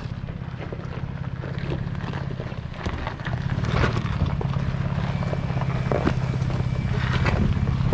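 Chevy Colorado ZR2 pickup crawling over rock and gravel at low engine speed: a steady engine hum with tyres crunching and stones crackling, growing louder as the truck passes close by about halfway through.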